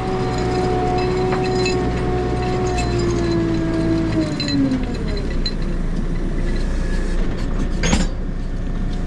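JCB 3CX backhoe loader's diesel engine and hydraulics running under load with a steady whine that falls in pitch about four to five seconds in as the revs come down. A single sharp metal clank near the end.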